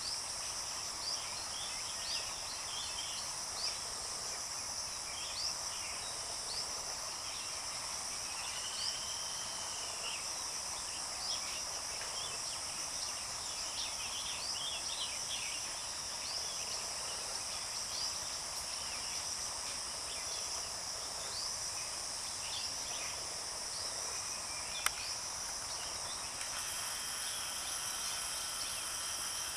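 Steady high-pitched drone of insects, with short rising chirps repeating every second or two. One sharp click comes about 25 seconds in, and a second steady high tone joins about 26 seconds in.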